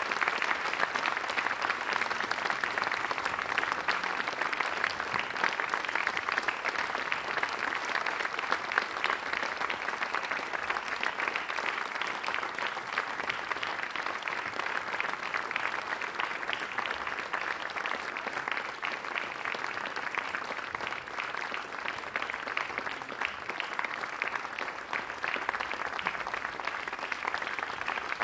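Audience applauding: a dense, steady clapping that eases off slightly after about twenty seconds and picks up again near the end.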